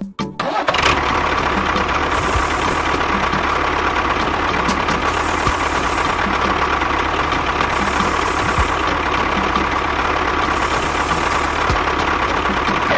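A small motor on a homemade miniature machine running steadily at an even speed, starting about half a second in and stopping near the end.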